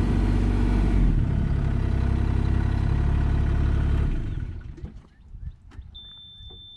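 Bobcat E32 mini excavator running loudly with a steady hum and hiss, which winds down and dies away about four seconds in. A steady high-pitched beep sounds for about a second near the end.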